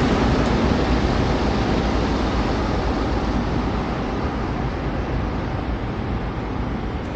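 Steady rushing noise of wind buffeting the microphone of a camera riding along on a bicycle, with city traffic beneath it, easing slightly toward the end.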